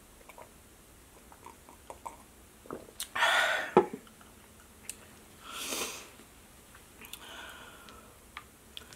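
Close-miked breath sounds: a loud breathy exhale about three seconds in, ending in a sharp click, a second breathy exhale around six seconds, and a softer one a second later, with faint small clicks between.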